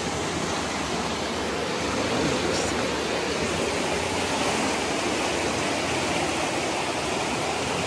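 Fast whitewater of Big Spring's outflow rushing over rocks, a steady rushing noise.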